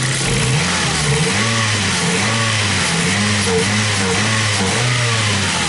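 Ford Focus engine being revved in quick repeated throttle blips, the pitch rising and falling about once every three-quarters of a second, then settling back to idle near the end. It revs evenly with no misfire felt, after its rich-running condition was fixed.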